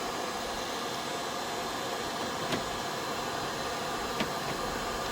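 Hair dryer blowing steadily, warming a frozen charging-port lock. Two faint clicks about two and a half and four seconds in.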